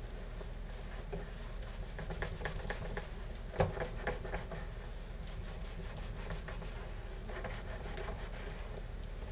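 Plastic boilie rolling table being worked back and forth: the top roller scraping and rubbing over the grooved base as it rolls the dough logs into balls. It is a run of many small scraping strokes, with one sharper click about three and a half seconds in.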